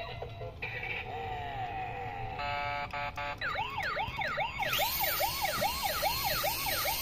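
Electronic toy-style siren sound: after a few beeps and a falling tone, a fast wailing yelp starts about halfway through, rising and dropping about three times a second.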